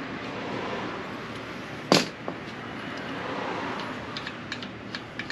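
A single sharp metallic crack about two seconds in as a bolt at the bottom of a Kawasaki W650's front fork is loosened with a hand wrench, then a few light tool clicks near the end, over a steady background hiss.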